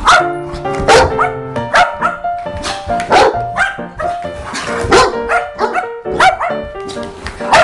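A dog giving sharp play barks, roughly one a second, over background music with held notes.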